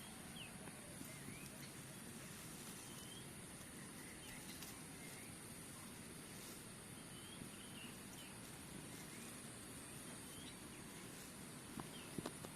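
Forest ambience: a steady high-pitched insect drone with scattered short bird chirps. A few sharp clicks come near the end.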